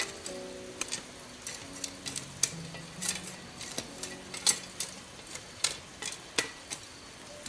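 Irregular sharp clicks and taps, about two a second, over faint soft background music.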